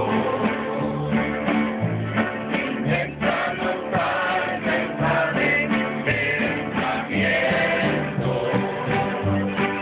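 Live acoustic band of many strummed acoustic guitars and a plucked upright bass, with a group of voices singing together over them.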